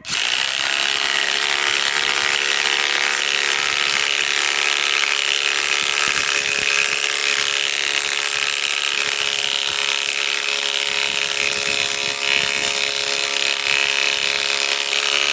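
Ryobi PSBIW25 cordless compact impact wrench run flat out for about fifteen seconds, hammering steadily on a fastener in wood, then stopped abruptly.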